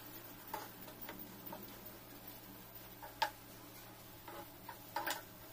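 A metal spoon knocking and scraping against a non-stick frying pan while thick cooking tomatoes are stirred: a few faint, irregular clicks, the sharpest about three seconds in and a quick pair near the end, over a low steady hum.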